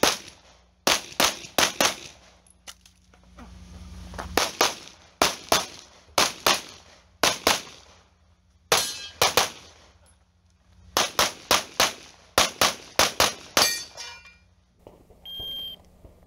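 Pistol shots fired in quick pairs and short strings, a few shots a second, with pauses of one to two seconds between groups. Near the end comes a short electronic beep, the shot timer's start signal.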